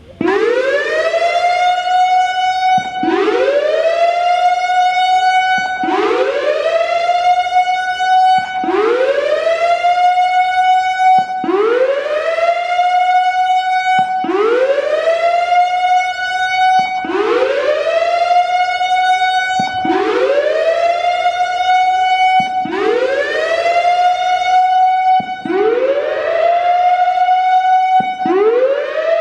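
Whelen WPS-3000 electronic outdoor warning siren sounding its Whoop signal: a loud tone that sweeps quickly upward, levels off, then cuts off and starts again, repeating about every three seconds.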